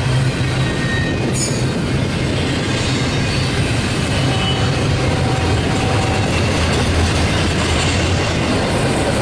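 Loaded double-stack intermodal well cars rolling past, a steady rumble of steel wheels on the rails, with faint high wheel squeals now and then.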